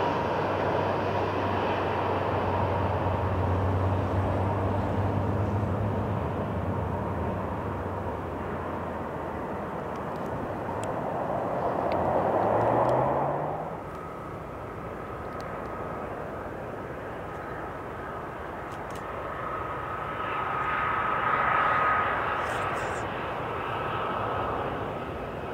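Jet engines of an Airbus A320 just after touchdown: a loud, steady jet hum whose pitch rises as the sound swells about twelve seconds in, then cuts off abruptly. Then a Boeing 737-700 on final approach, its CFM56-7B engines giving a steady high whine that swells and fades near the end.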